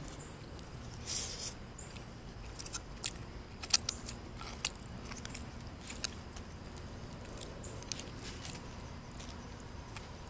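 A person chewing food, with scattered sharp clicks and scrapes of chopsticks and a plastic spoon against a styrofoam food box, and a brief louder rustle about a second in.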